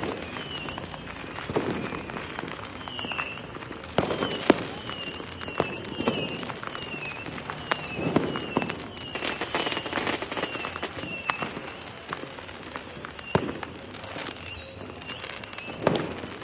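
Fireworks and firecrackers going off: a steady run of sharp bangs and crackles with deeper booms among them. The loudest bangs come about four seconds in and again past the middle. A short chirping tone repeats about every half second underneath.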